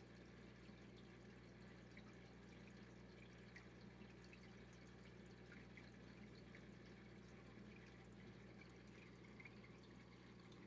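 Faint aquarium sounds: a steady low hum with light, irregular dripping and trickling of water as the tank's water circulates.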